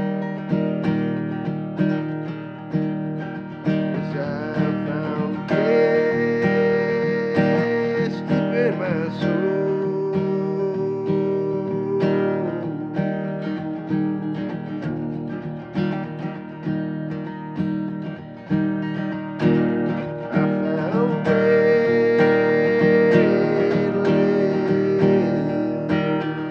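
Acoustic guitar strummed in a steady rhythm of chords, with long held notes over it twice.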